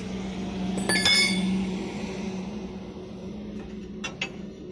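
A single sharp metallic clink that rings briefly, about a second in, from metal parts knocking together during a lorry tyre change. A steady hum runs underneath, and two light clicks come near the end.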